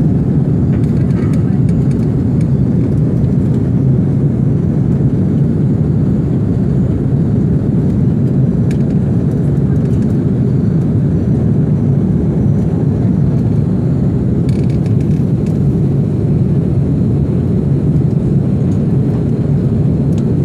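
Steady low roar of engines and rushing air inside the cabin of an Airbus A330 climbing after takeoff.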